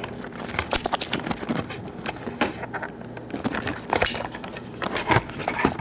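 Irregular clicks and knocks of a padlock and its keys being handled.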